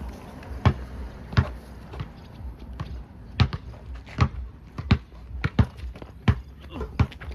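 Basketball being dribbled on a hard floor: about ten sharp bounces at an even pace, roughly one every 0.7 seconds.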